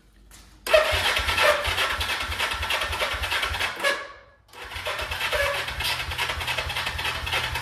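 1971 Honda CL350's electric starter cranking the parallel-twin engine in two long bursts of about three and a half seconds each, with a fast even chugging, and the engine not catching: the ignition has lost spark.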